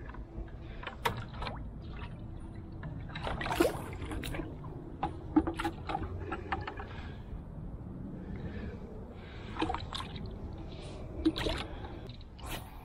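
Water splashing and sloshing in a plastic bucket as a freshly caught crappie is put in to be kept, with scattered sharp knocks and rustles of handling.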